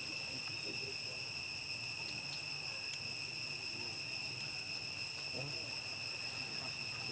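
Steady, high-pitched insect drone that holds one pitch with higher overtones and does not break, with faint distant voices underneath.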